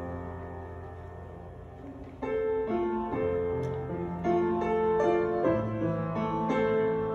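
Slow piano music playing as a church service prelude: soft held notes at first, then fuller chords from about two seconds in.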